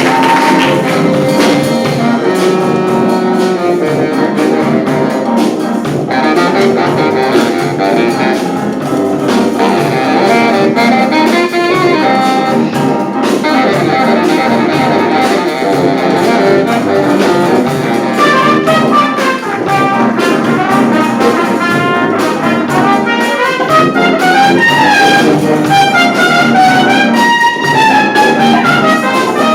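A wind band playing, led by trumpets and trombones, with held chords and moving lines. About eighteen seconds in, a higher trumpet line takes over with quick runs up and down.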